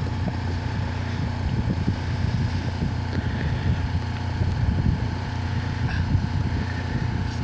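Wind buffeting the camcorder microphone, an uneven gusty rumble over a steady low hum.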